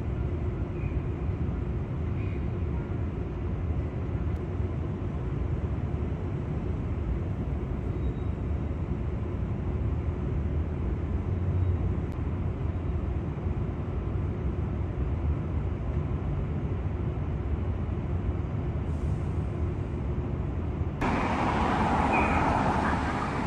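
Steady low rumble of city traffic with a faint steady hum. About 21 seconds in it cuts abruptly to louder, brighter street-level traffic noise.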